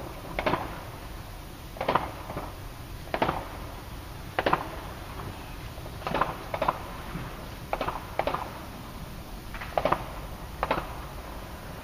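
Aerial fireworks going off: a string of sharp bangs at irregular intervals, about one a second and some in quick pairs, each with a short echo.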